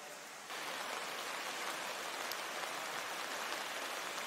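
Steady rushing noise of floodwater, stepping up in level about half a second in.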